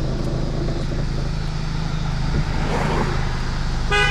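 Car engine and road noise heard from inside the cabin while driving, a steady low drone. A short, steady pitched beep sounds near the end.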